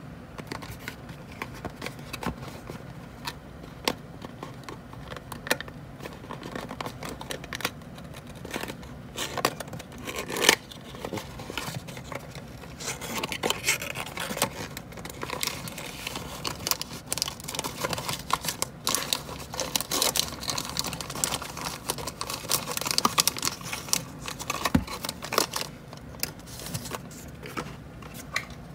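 Hands opening a small cardboard toy box and pulling out a toy car in a clear plastic bag: cardboard scraping and tearing with sharp clicks and taps, then plastic bag crinkling. It gets busier about halfway through.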